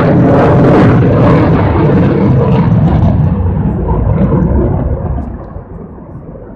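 Loud jet noise from an F-35 fighter's F135 turbofan as the jet flies past, a dense roar that grows duller and then falls away about five seconds in as the aircraft moves off.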